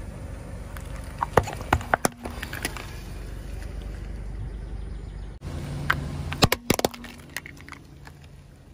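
Hard plastic toys cracking and snapping under a car tyre in two bursts of sharp cracks, over the low steady rumble of the car.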